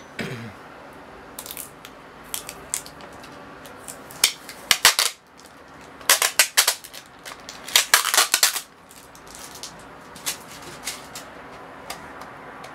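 Adhesive tape being peeled and torn off a plastic straight-razor case, in a series of short ripping bursts, the longest and loudest from about four to nine seconds in.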